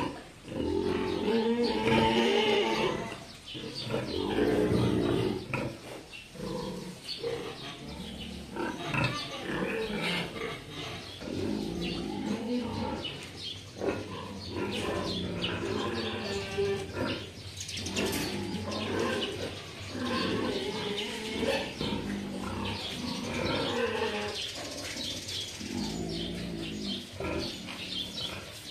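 Several sows grunting and calling, short pitched calls following one another with barely a pause.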